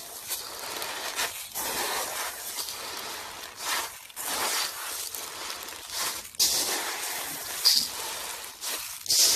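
Crunchy slime being squeezed and kneaded by hand, with a dense run of crackling and popping and a few sharper, louder pops near the end.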